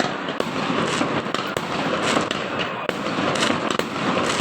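Fireworks and firecrackers going off continuously: a dense crackle of many overlapping pops and bangs in quick, irregular succession, with some louder bangs standing out.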